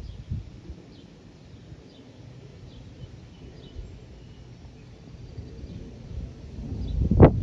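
Outdoor ambience: faint, scattered bird chirps over a low, steady rumble. Near the end a loud rush on the microphone swells to a sharp peak and drops away.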